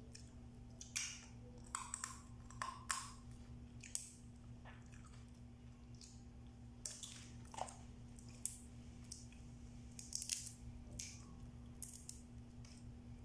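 Scattered small cracks, clicks and crunches of cooked blue swimmer crab shell being broken and picked apart by hand, with chewing, over a steady low hum.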